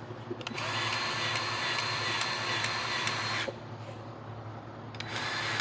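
Cordless battery-powered grease gun motor whirring steadily as it pumps grease into a zerk fitting on a mini excavator. It runs for about three seconds, stops, then starts again near the end.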